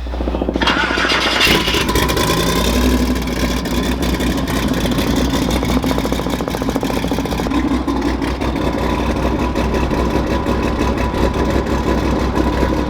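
A truck engine starting up about half a second in, revving briefly with a rising pitch, then running at a steady, lumpy idle.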